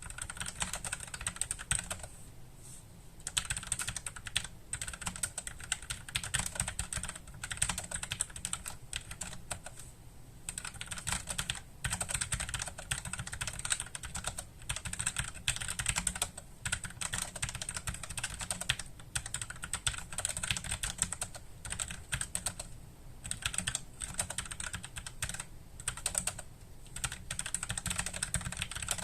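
Typing on a Logicool (Logitech) MX Mechanical Mini low-profile mechanical keyboard with tactile brown switches. The keystrokes come in quick, steady runs, broken by a few short pauses.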